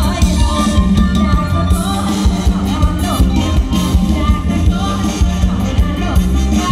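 Live Isan mor lam band music, with a singer over a heavy, steady bass.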